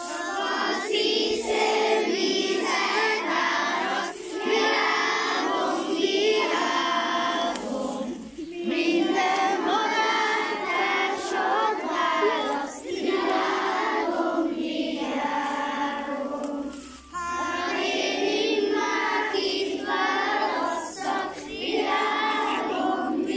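A group of young schoolchildren singing a song together in unison, unaccompanied, in phrases of about four seconds with short breaks between the lines.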